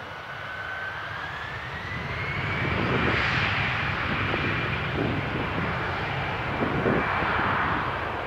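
Jet airliner's engines spooling up on the runway: a whine rising in pitch for about two seconds, then held steady over a loud rush of engine noise as thrust comes on.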